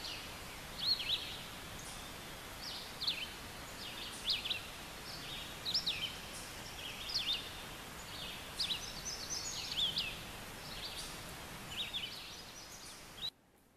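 Small birds chirping, short quick call notes about once a second over a steady outdoor background hiss; it cuts off suddenly near the end.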